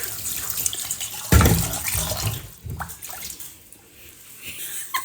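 Water running and splashing, with a heavy knock about a second in; the water sound fades after about three seconds.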